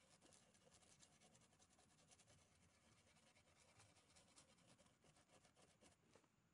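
Near silence with faint, rapid scratching: an ECU circuit board being scrubbed clean of old capacitor electrolyte residue.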